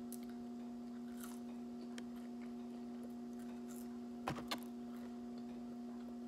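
Faint handling of fast-food paper and cardboard packaging while eating, with a few light ticks and two sharp clicks about four seconds in, over a steady low electrical hum.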